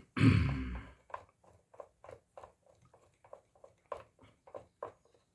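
Phillips screwdriver backing screws out of a plastic blender base: a short clatter about a second long, then a run of small clicks, about three a second.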